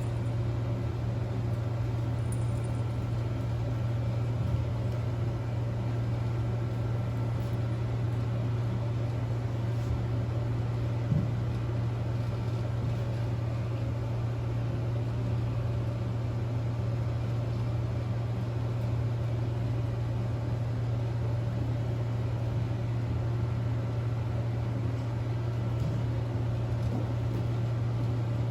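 A steady low hum with a noisy hiss over it, unchanging throughout, broken only by two faint knocks, one about four seconds in and one about eleven seconds in.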